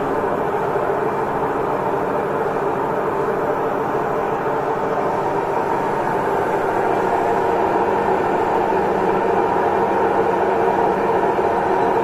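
Samsung Digital Inverter front-load washing machine running with an abnormally loud, steady mechanical rumble, growing a little louder about halfway through. The noise comes from a vibration fault; the repairer says the belt and pulley are fine and likens the sound to a helicopter running.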